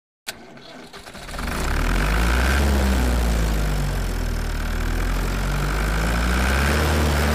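Low, steady engine-like drone of a homemade model tractor's motor driving over mud. It starts about a second in, after a brief silence, and its pitch wavers slowly up and down.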